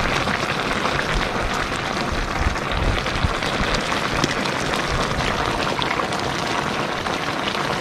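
Fish-and-bamboo-shoot braise boiling hard in a wok: a steady, dense bubbling and spattering of the broth.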